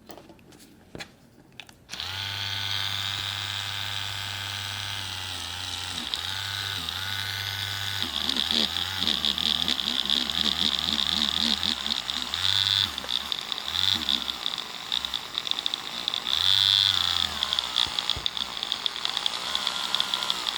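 A few clicks, then about two seconds in a small handheld electric polishing tool starts and runs with a steady whine. Its pitch dips and wavers at times as the head works fine polishing compound on a clear plastic part.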